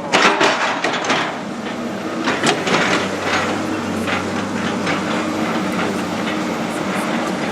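Heavy machinery engine running steadily, with scattered sharp knocks and cracks, most of them in the first few seconds.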